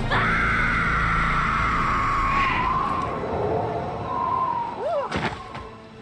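A woman's long high scream that slowly falls in pitch, then breaks into a few shorter cries.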